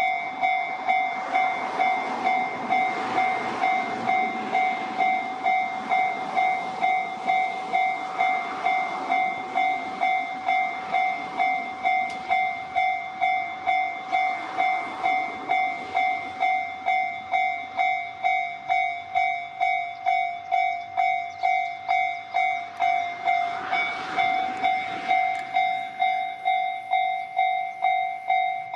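Japanese railway level-crossing warning bell ringing in a steady, rapid series of electronic dings, about two a second. An electric commuter train passes through the crossing with a rumble of wheels on rails, which fades out near the end.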